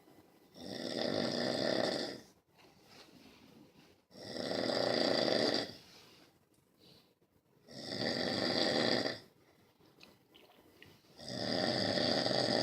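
Snoring: four long snores, each lasting about a second and a half and coming about every three and a half seconds, in an even rhythm.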